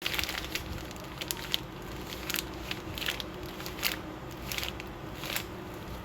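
Handmade squishy star being squeezed and handled, giving irregular crackling and crunching over a steady low hiss.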